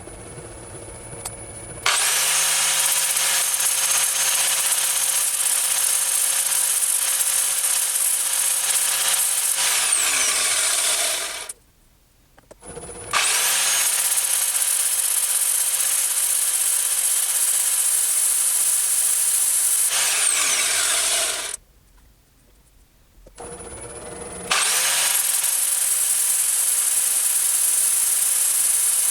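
Angle grinder with a flap disc grinding metal in three runs, taking off a sharp corner. Each time it spins up quickly to a steady high whine with grinding noise. The first two runs wind down over a second or two before a short pause.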